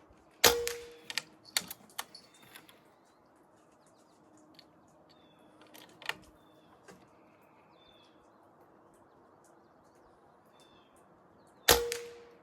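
Two suppressed shots from a Benjamin Armada PCP air rifle fitted with a small moderator, one about a second in and one near the end, each a sharp crack with a brief metallic ring. Several lighter mechanical clicks follow the first shot.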